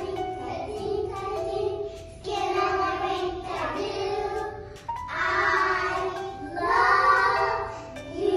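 A children's song: young children's voices singing over an instrumental backing track.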